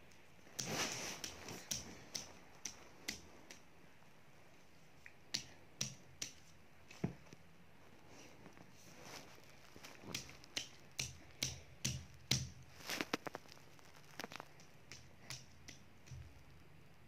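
A baby's hands slapping and patting against a glossy poster on the wall: irregular sharp taps, some in quick runs, with short pauses between.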